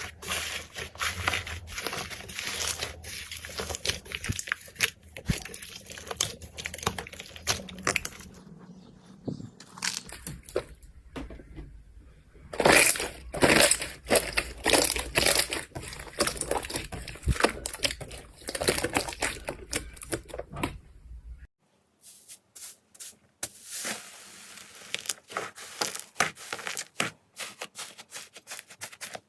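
Slime being squished, poked and stretched by hand, giving dense crackling and popping clicks. The sound changes abruptly a few times as one clip cuts to the next.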